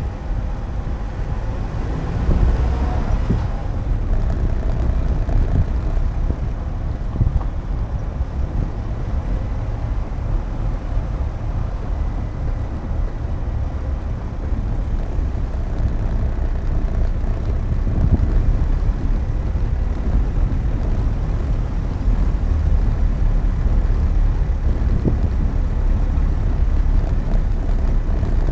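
A car driving along, heard from inside the cabin: a steady low rumble of engine and tyres on the road, with a few slightly louder bumps along the way.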